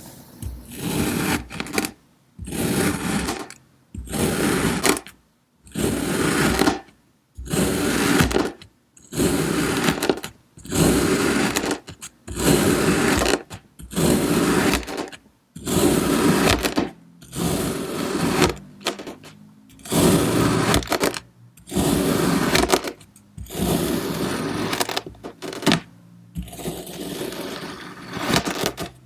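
Kinetic sand being sliced with a blade, a soft crunching scrape with each cut. The cuts repeat in an even rhythm, about one every second and a half to two seconds, each lasting a little over a second with a short pause between.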